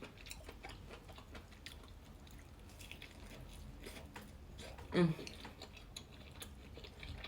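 Soft, close chewing of food with small wet mouth clicks, and a brief hummed "mm" about five seconds in.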